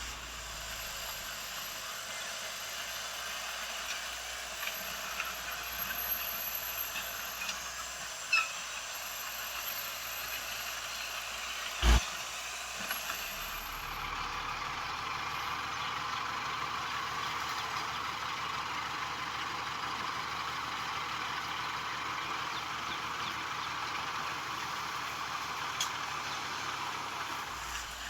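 Heavy earthmoving machinery running steadily, with a short squeak about eight seconds in and a single sharp bang, the loudest sound, about twelve seconds in.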